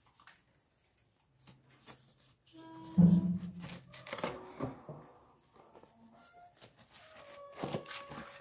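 Kitchen knife cutting through a pineapple's rind, short crisp scraping and crunching cuts. A loud pitched call breaks in about three seconds in, with fainter pitched sounds near the end.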